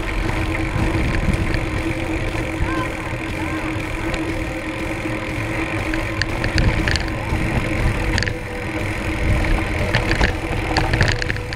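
Mountain bike rolling downhill over a rocky dirt trail: wind rushing over the camera microphone with the tyres crunching on loose gravel, and scattered clicks and rattles as the bike jolts over stones.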